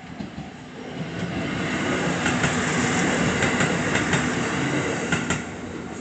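A JR Takayama Main Line local diesel train passing through a level crossing. It builds to its loudest in the middle, with the clatter of wheels over rail joints, then fades as it clears. The crossing's warning bell rings under it.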